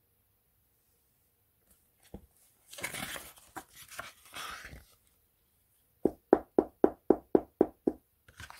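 Paper picture-book page being turned, a rustle lasting about two seconds. Near the end comes a quick run of about ten short pitched taps, about five a second.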